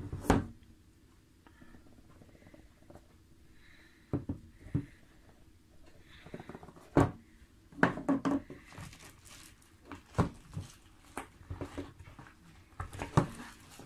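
Cardboard eyepiece box being handled and opened by hand: a tight white inner box sliding out of a black outer sleeve, with irregular sharp knocks and taps and soft scraping of cardboard.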